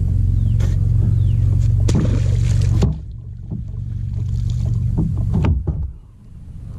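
A landing net splashes through the water beside a kayak and is lifted out, with a few knocks against the boat. Under it runs a steady low drone that drops away about three seconds in.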